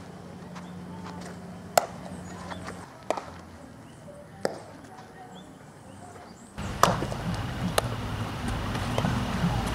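Baseball infield practice: several sharp pops and cracks of the ball smacking into leather gloves and off the bat, a second or two apart, over a low outdoor hum.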